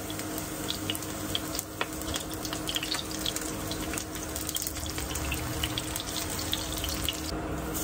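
Battered wild-plant tempura frying in sesame oil in a frying pan, a steady sizzle with many small crackles and pops.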